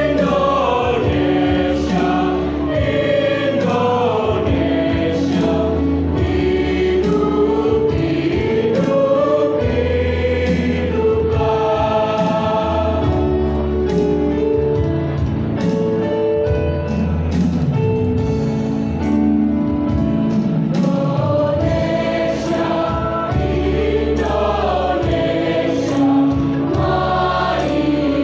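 Mixed-voice high-school choir of boys and girls singing together, with long held notes and a melody that moves between them.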